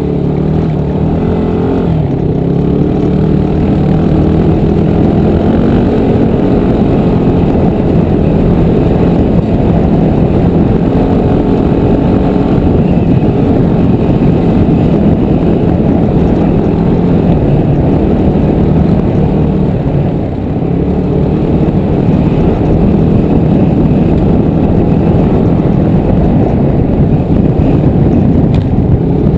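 Dirt bike engine running on a rough trail, its pitch rising and falling with the throttle, over a constant rushing noise. The engine drops off briefly about two-thirds of the way through.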